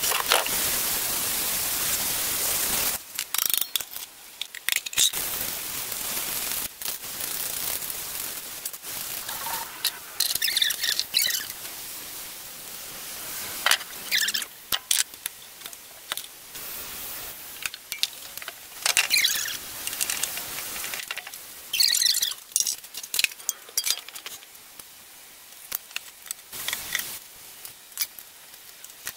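A string of short workshop sounds from hands-on work on diesel engine parts. A steady hiss for about the first three seconds gives way to scattered clicks, knocks and high metallic squeaks and scrapes as the parts are handled and fitted.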